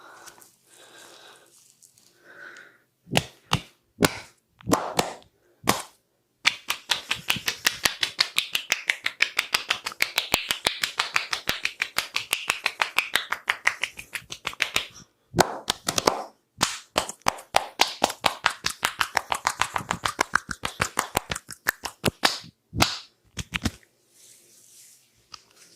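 A massaging barber's hands striking in a fast percussive massage, slapping and chopping at about seven strikes a second. There are two long runs with a short break between, and a few separate slaps before and after.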